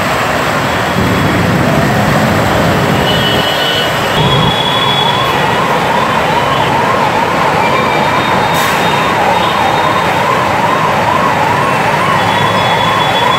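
A siren wailing up and down about twice a second, starting about four seconds in, over a steady wash of road-traffic noise.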